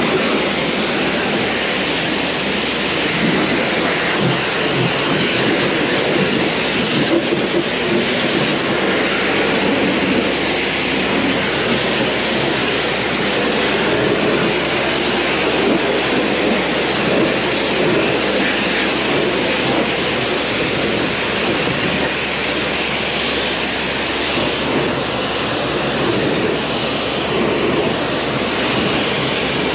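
Pressure washer jet of water blasting against a tractor's steel wheel rim and tyre: a steady, loud hiss of spray spattering off the wheel.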